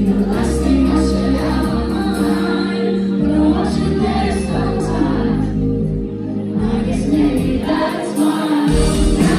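Live pop ballad played on electric guitar and bass, with several voices singing along in a large hall.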